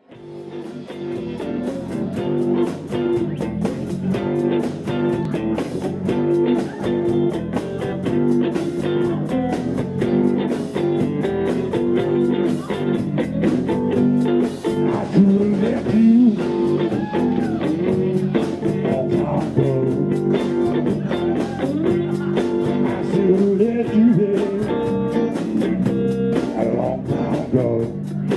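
Live blues band playing: electric guitars, bass and drums, with guitar notes sliding up and down in pitch over a steady beat. The sound fades in over the first couple of seconds.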